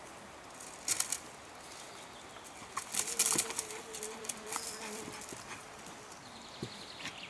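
A pitbull's paws thudding and scrabbling on sandy forest ground as it leaps at a springpole and lands again, with rustling of grass and litter. Short knocks come about a second in and in a busier run between three and five seconds.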